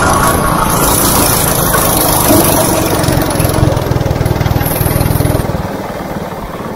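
Go-kart's small engine running under throttle as the kart is driven around the track, then quietening and dropping in note near the end as the kart eases off.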